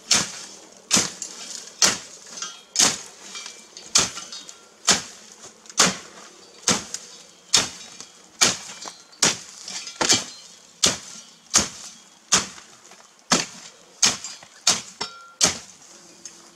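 A long-handled garden tool chopping down into dry garden waste in a wooden compost box: about twenty sharp strikes, roughly one a second, coming a little faster near the end.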